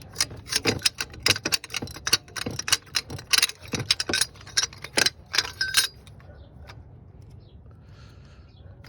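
Metal tools and parts clinking and clicking rapidly and irregularly as they are handled during work on the engine's temperature sensor. The clicking stops about six seconds in.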